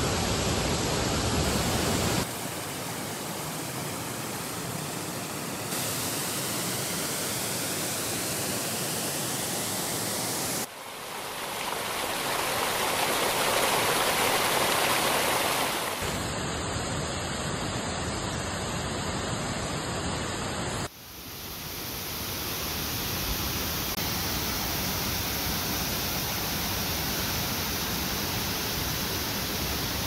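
A large waterfall's steady rush of falling water. Its level and tone shift abruptly several times as the footage cuts between recordings, and it is loudest in the middle.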